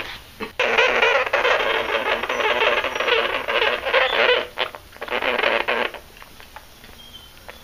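Sugar gliders crabbing: a loud, noisy, rasping chatter, steady for about four seconds, then in shorter bursts before it fades near the end. It is the defensive warning of upset, angry gliders.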